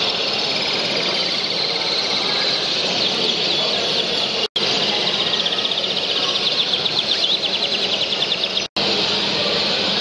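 Many canaries singing at once, a dense chorus of rapid overlapping trills. The sound cuts out for a moment twice, about halfway through and near the end.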